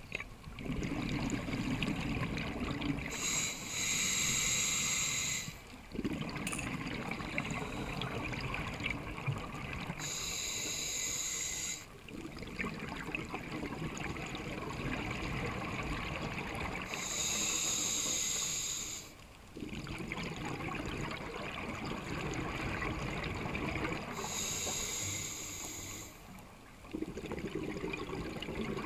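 Scuba diver breathing through a regulator underwater: four slow breaths, each a hissing inhale of two to three seconds followed by several seconds of bubbling exhale.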